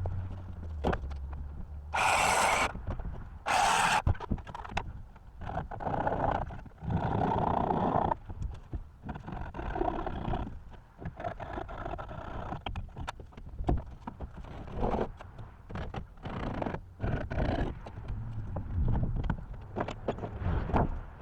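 Irregular knocks and scrapes of wood being handled and worked, typical of red oak floor boards being laid on a shed's floor frame. Two short harsh bursts come about two and three and a half seconds in.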